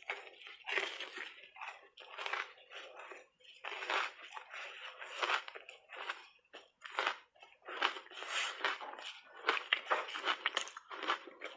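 Crunching and chewing of reshaped ice coated in matcha powder, in irregular runs of sharp crunches with short pauses between bites.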